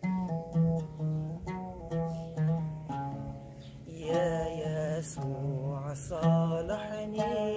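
An oud played solo, plucking a melodic phrase note by note. About four seconds in, a man's voice joins, singing a long wavering line over it.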